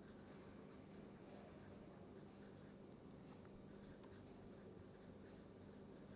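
Felt-tip marker writing on paper: faint, quick strokes coming in short clusters, over a low steady hum.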